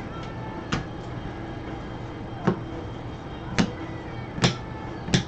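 Five sharp, irregularly spaced snaps and taps as a stack of trading cards is handled and flipped through by gloved hands, over a faint steady hum.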